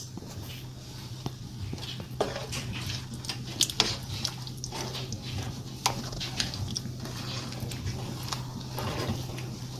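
Scattered clinks and knocks of a utensil against cookware while ingredients are added and stirred, over a steady low hum.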